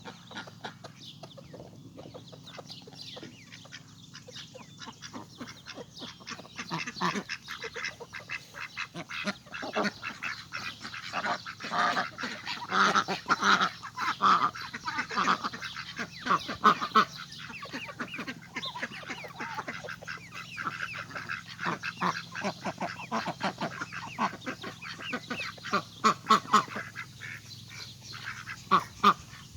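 Domestic ducks quacking and chattering in many short calls, busiest about halfway through and again near the end.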